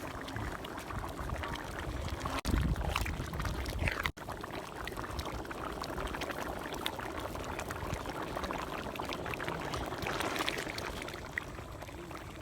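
Liquid noise from mutton stock and curry cooking in a pot, a continuous wet hiss with two abrupt breaks about two and a half and four seconds in.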